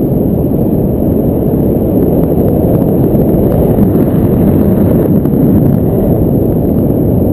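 Air rushing over a GoPro camera's microphone in paraglider flight: a loud, steady low rumble of wind buffeting.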